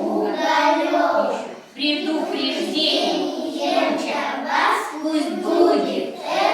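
A group of young children singing together in chorus, with a brief pause about a second and a half in.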